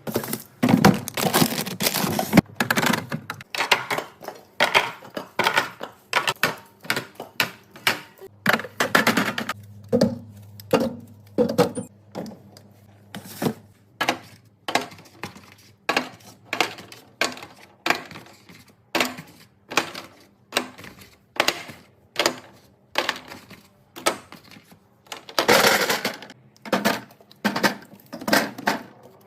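Containers and items being set down and arranged in a refrigerator: a steady series of clicks, clinks and knocks, about one or two a second.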